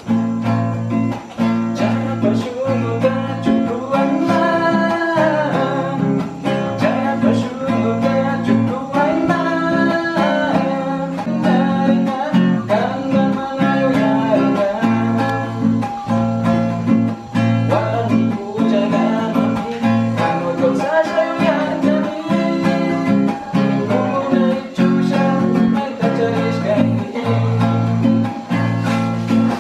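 Background music: a strummed acoustic guitar song with a steady rhythm and a sung melody.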